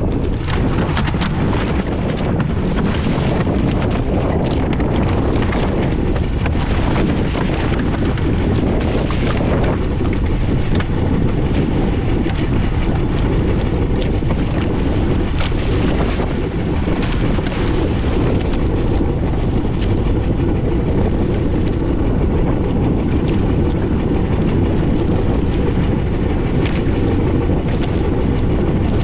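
A small fishing boat under way at sea: a steady low rumble of the boat's engine and heavy wind buffeting the microphone, with brief louder gusts now and then.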